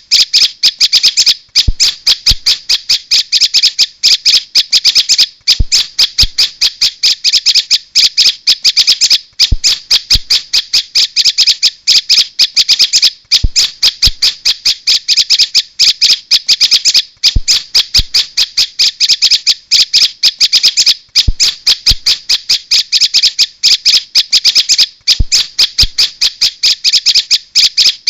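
Recorded prenjak (prinia) calls played as a bird lure: loud, high, rapid notes repeated many times a second in long runs broken by short pauses.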